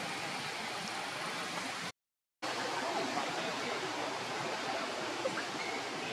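Steady, even rushing noise like running water, broken by about half a second of total silence around two seconds in.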